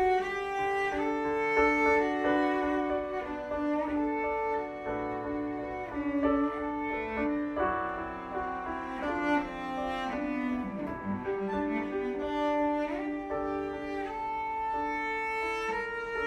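Cello and keyboard improvising together: the cello bows long sustained melody notes over keyboard chords, with a swooping slide in pitch about ten seconds in.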